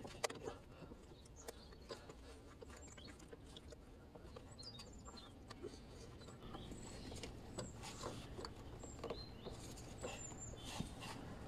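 Faint scattered clicks and light knocks of hands handling hoses and fittings on a car engine, with a few faint high chirps in between.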